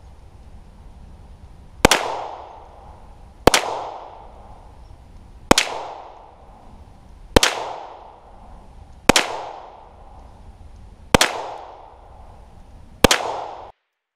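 Seven shots from a 9mm Polymer 80 pistol, a Glock-pattern build with a new slide, fired in slow aimed fire about one every two seconds. Each shot is followed by a fading echo.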